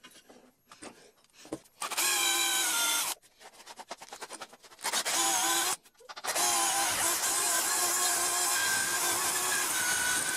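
A power drill runs in three bursts as a twist bit bores into a wooden slat. The first two bursts are short, about a second each, and the third runs steadily for about four seconds.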